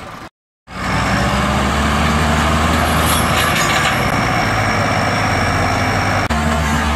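Tractor diesel engine working hard under a heavy load, a loud steady low drone. The sound drops out briefly just after the start and changes slightly about six seconds in.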